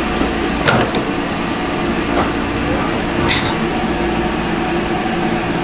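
Food-shop kitchen ambience: a steady hum of equipment with indistinct voices underneath and a few sharp clicks and clinks.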